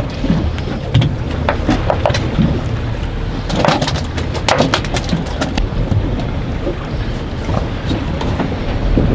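Strong wind buffeting the microphone aboard an anchored boat, a steady low rumble. A run of sharp knocks comes around the middle.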